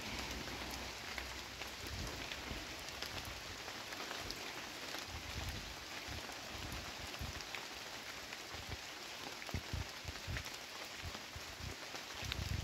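Steady rain falling on wet foliage, with scattered close drops ticking.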